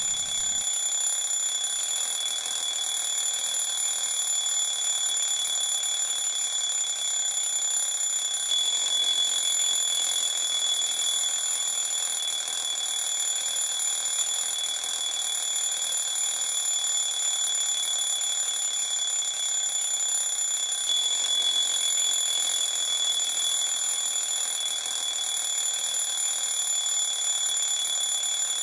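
A steady, high-pitched electronic alarm tone with overtones, sounding continuously and unchanged.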